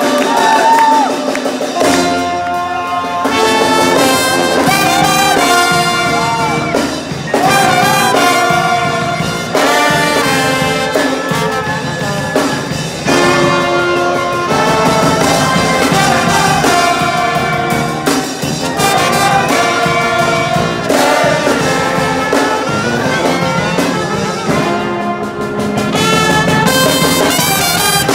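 Brass band playing live: trumpets and trombone over a sousaphone bass line and snare drum, in a lively tune of held chords that change every second or two. The bass comes in about two seconds in.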